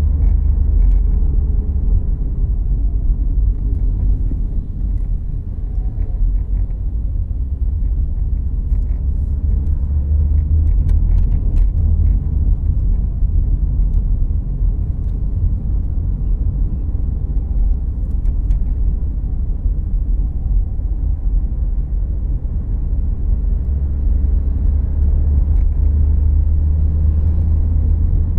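Inside the cabin of a 2014 Volkswagen Jetta Clásico being driven: a steady low rumble of engine and road noise. A few faint clicks or rattles come about ten seconds in.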